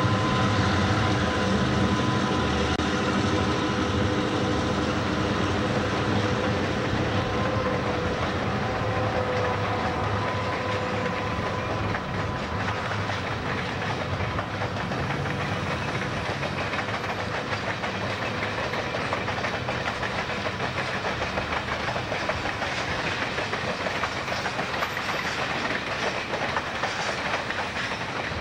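A passenger train passing at speed. A steady hum from the locomotives fades over the first ten seconds or so, leaving the continuous rush and clatter of the passenger cars' wheels on the rails.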